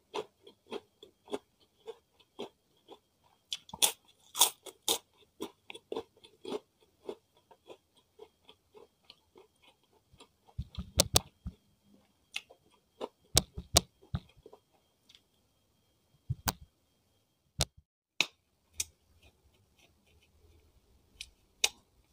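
Close-miked chewing of crispy fried food: short crunches about twice a second for the first ten seconds. After that come a cluster of louder clicks and knocks as fingers pick at a plastic plate, then a few scattered clicks.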